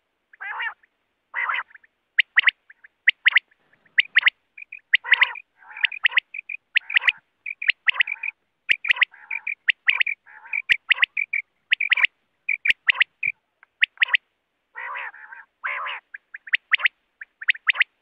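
Quail calling over and over: quick runs of two or three sharp whistled notes, with rougher, buzzier notes now and then between them. A few sharp clicks fall among the calls.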